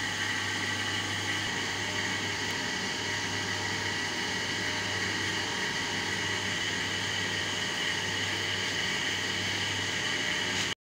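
Electric hydraulic pump of a concrete cube compression testing machine running steadily as it loads a cube, a constant hum with a steady high whine over it.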